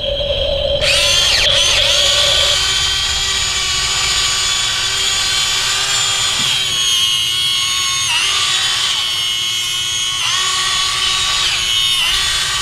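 Electric drive motors and gearboxes of a remote-control toy Volvo EC160E excavator whining as it crawls through mud on its tracks. The high whine starts about a second in and dips briefly in pitch three times in the second half.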